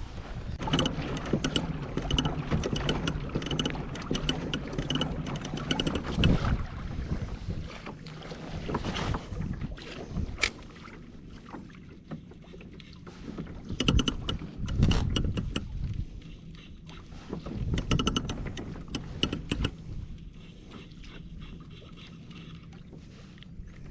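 Knocks, clicks and shuffling of gear and movement in a fishing kayak, over an uneven low rumble, with louder swells now and then.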